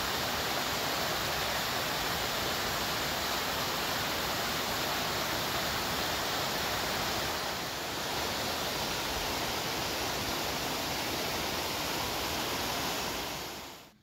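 Mountain stream rushing over rocks in small cascades: a steady, loud hiss of water. It dips briefly about halfway through and fades out at the end.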